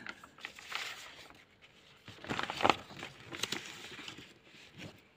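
Paper rustling and handling sounds as a notebook page is turned over and smoothed flat, in several uneven rustles, the loudest a little over two seconds in.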